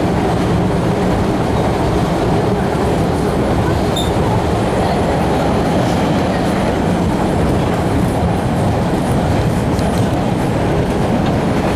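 MBTA Red Line subway train running along the track, heard from inside the passenger car: a steady rumble of wheels on the rails.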